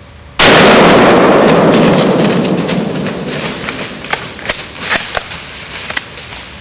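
A single .270 rifle shot fired at a whitetail buck, very loud and sudden, with its echo rolling and dying away through the woods over the next two or three seconds. A few sharp snaps and clicks follow near the end.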